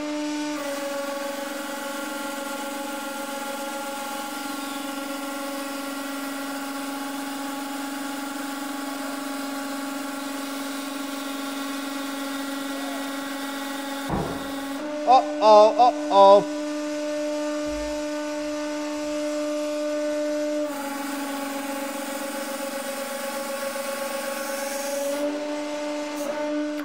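150-ton hydraulic press's pump running with a steady humming whine while the ram squeezes a solid copper cylinder up to about 49 tons of force. About halfway through there is a knock and a brief, louder wavering sound, after which the pump hum carries on with a slightly changed tone.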